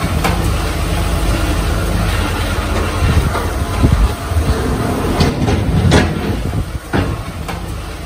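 Snowplow truck's diesel engine running with a steady low rumble as it moves slowly, with several sharp clanks in the second half, and the sound getting quieter near the end.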